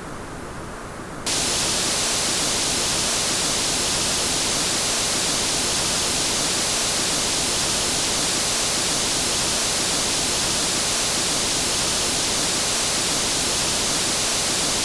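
Synthetic noise: a softer, darker hiss switches suddenly, about a second in, to a louder, brighter steady hiss like white noise.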